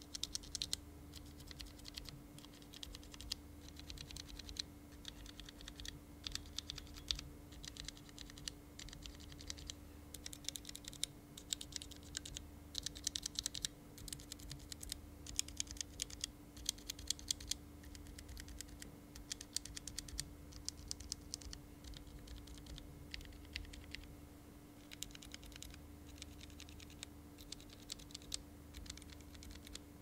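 Unlubed budget linear mechanical keyboard switches, among them JIXIAN Holy Dog and Gateron Red KS3, typed on in turn with bare stems and no keycaps. The keystrokes come in quick bursts of about a second with short pauses between them, over a faint steady hum.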